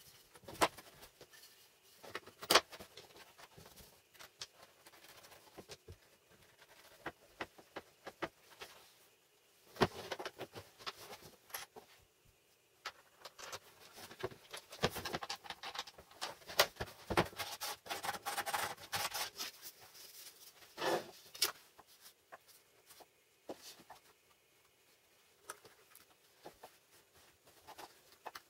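MDF parts of a homemade table saw sled handled and fitted together on a wooden workbench: scattered light knocks and clicks, with a longer stretch of scraping and sliding about halfway through.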